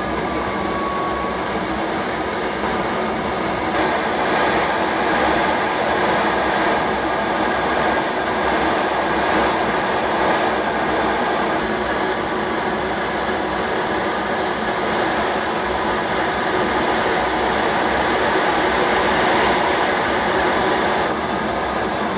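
KAI KF-21 Boramae fighter's twin General Electric F414 turbofan engines running steadily: an even rushing jet noise with several high whining tones over it. It grows a little louder about four seconds in.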